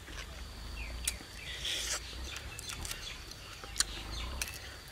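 Birds chirping over a steady outdoor background. There are a few sharp small clicks and a short rustle about a second and a half in, as cooked duck meat is pulled apart by hand.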